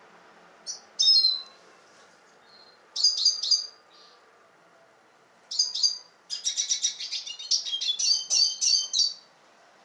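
Male red siskin singing: short high chirping phrases about a second in, at about three seconds and again at five and a half seconds, then a longer run of rapid twittering song from about six to nine seconds.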